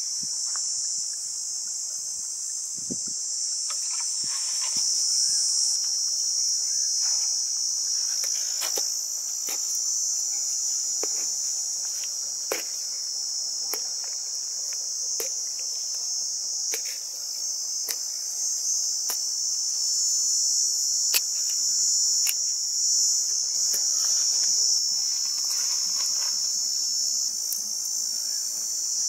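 Insects chirring in a steady high-pitched chorus, with scattered sharp clicks.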